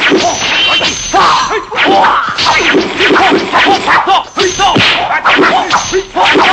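Dubbed kung fu fight sound effects: a rapid string of punch and slap whacks and swishing blows, with short shouts from the fighters.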